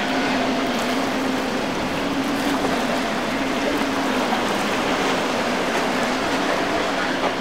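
Outboard motor running at a steady, slightly wavering pitch, over the wash of choppy water and wind.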